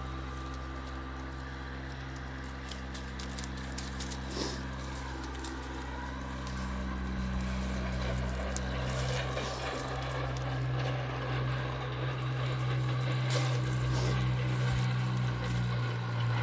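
A steady, low machine hum that grows louder about halfway through, with a few faint clicks over it.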